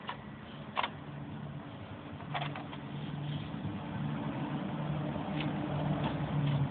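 A steady motor hum that grows louder, with a few sharp clicks in the first half.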